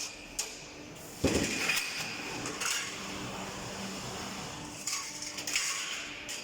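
Steel drywall-profile roll forming line running with a steady hum, broken by repeated sharp metallic clanks and clatter, the loudest about a second in.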